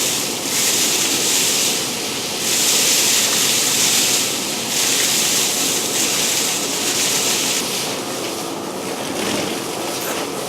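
Breathing through a dust mask close to the microphone: a loud, airy rush that swells and eases about every two seconds.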